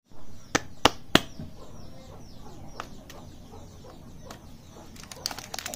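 Three sharp clicks in quick succession in the first second and a half, then faint chirping of birds in the background. Near the end, a plastic candy wrapper starts crinkling as it is picked up.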